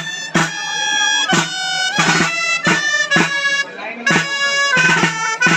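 Dolçaina (Valencian shawm) playing a dance melody in short held notes over drum strokes from a tabalet.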